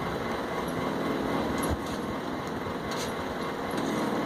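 Steady mechanical background drone, with a few faint light taps.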